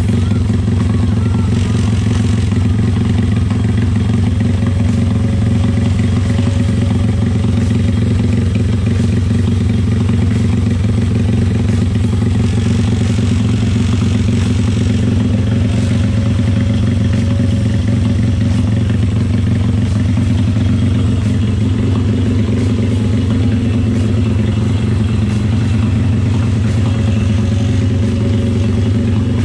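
Honda GL motorcycle's single-cylinder four-stroke engine running steadily through a newly fitted aftermarket exhaust, with no revving. It is run to check the exhaust for leaks, and it is found not to be leaking.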